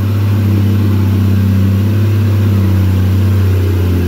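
Renault truck's diesel engine pulling hard under load up a muddy slope: a loud, steady, deep drone.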